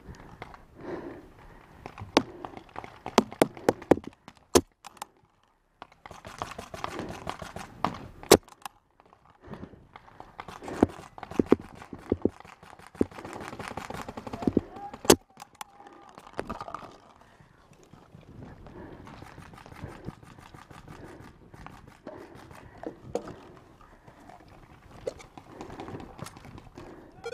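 Paintball markers firing in a game: a quick run of sharp pops a couple of seconds in, then single loud shots now and then, with quieter pops between.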